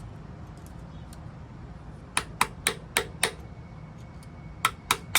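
Sharp taps of a hand tool on a part: five quick taps about four a second, then three more near the end.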